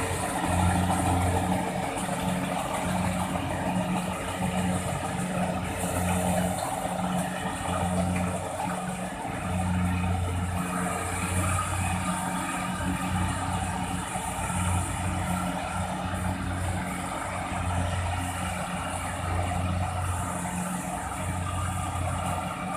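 Rice combine harvester running steadily, its engine and threshing machinery working together; the low engine hum swells and dips every second or two over a constant hiss.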